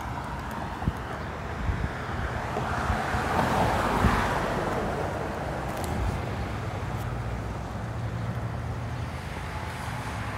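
Outdoor street noise with wind buffeting a phone microphone, swelling to its loudest about four seconds in.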